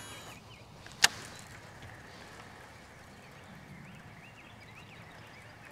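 A single sharp click about a second in, over quiet outdoor background with faint bird chirps in the second half.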